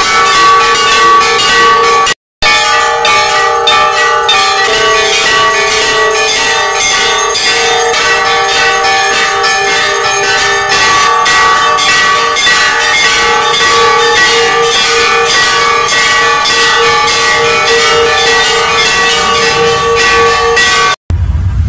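Several hanging metal temple bells rung rapidly by hand, about three or four strikes a second, their tones ringing on continuously. The ringing breaks off briefly about two seconds in and stops just before the end.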